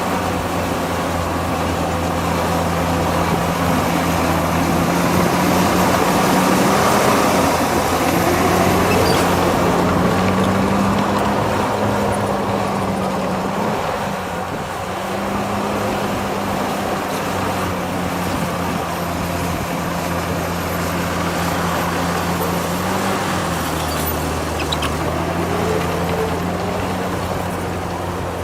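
Heavy diesel engine of a construction machine running steadily, with small dips and rises in engine speed about two-thirds of the way through.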